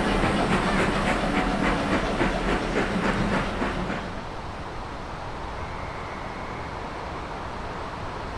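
Steam-hauled train passing close by: a rhythmic clatter of about four beats a second, which drops away about four seconds in and leaves a quieter, steady rumble.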